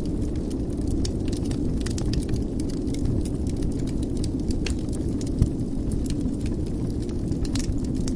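Wood fire burning in a fireplace: a steady low rumble with scattered crackles, and one louder pop about five seconds in.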